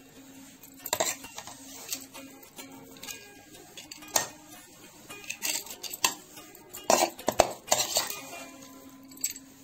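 Perforated metal spoon scraping and clinking against a metal kadhai while stirring dry besan mixture, in irregular strokes with a few louder knocks, the loudest a little past two-thirds of the way through.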